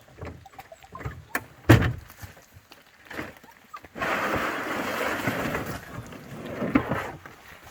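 Scattered knocks and thumps, one loud thump about a second and a half in, then about three seconds of steady splashing and sloshing water that fades near the end.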